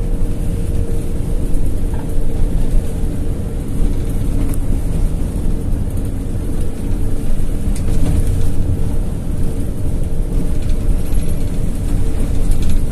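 Inside the cabin of a moving intercity coach: the bus engine drones steadily under road and tyre noise, with a steady hum running through it.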